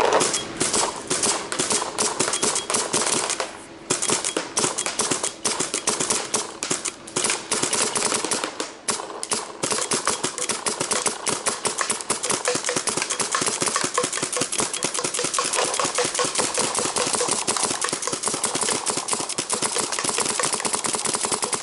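High-pressure-air paintball marker fired in a fast, unbroken string of shots, with two short pauses about four and nine seconds in.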